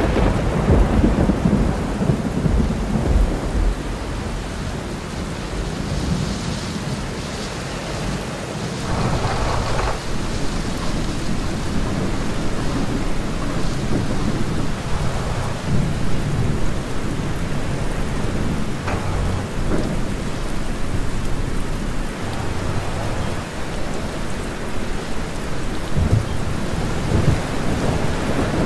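Thunderstorm: steady rain with rolling thunder. The rumble of a close clap fades over the first few seconds, and further low rumbles come and go.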